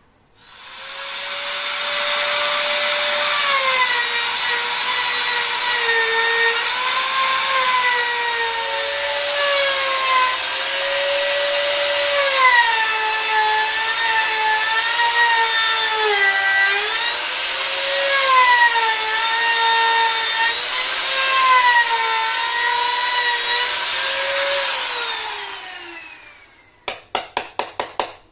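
Handheld trim router spinning up, then cutting a hinge recess into the wooden frame: its high whine sags in pitch each time the bit bites into the wood and recovers between passes. It switches off and winds down near the end, followed by a quick run of about eight hammer taps on a chisel.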